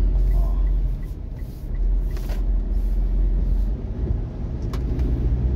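Car driving on wet city streets, heard from inside the cabin: a steady low rumble of engine and road noise, with a couple of faint clicks.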